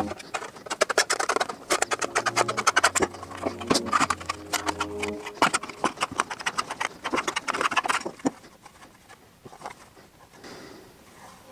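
Thin sheet metal being bent by hand with seaming pliers: a busy run of sharp clicks, clanks and rattles of the sheet and the tool, dying down after about eight seconds. Background music with a low bass note runs under the first five seconds.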